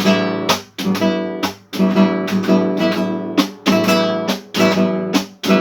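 Acoustic guitar strummed by a beginner, about three strokes a second. The same ringing unfretted chord sounds on every stroke.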